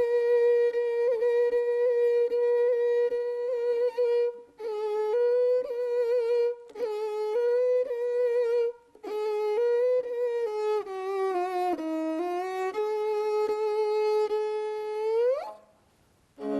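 Solo kobyz, a Kazakh bowed string instrument, playing a single-line melody with short breaks between phrases. The last note slides upward in pitch and cuts off about a second before the end.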